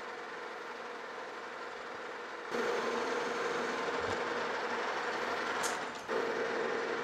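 Metal lathe running with a steady hum, its cutting tool taking a light finishing pass on a metal shaft. About two and a half seconds in the sound turns louder and fuller, breaks off briefly near six seconds, then picks up again.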